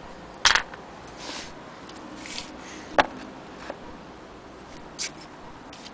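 Handling of an antique hand-crank sewing machine's wooden base: a few knocks and clicks as it is turned over, the loudest about half a second in and a sharp one about three seconds in, with soft rubbing of hands on wood between them.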